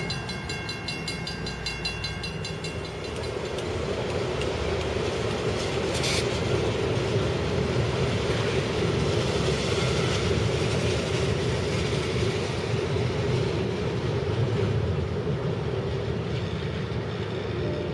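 A railroad crossing bell rings rhythmically for the first few seconds. Then a freight train of tank cars and covered hoppers rolls across a steel truss bridge: a steady rumble and rattle of wheels, with one sharp clank about six seconds in.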